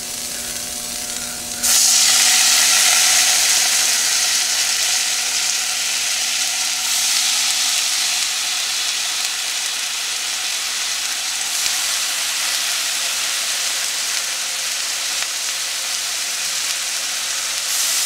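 Bacon strips frying on a hot electric nonstick griddle beside shredded hash browns, with a steady high sizzle. The sizzle jumps sharply louder about two seconds in as the first strip goes down, then rises again as more strips are laid beside it.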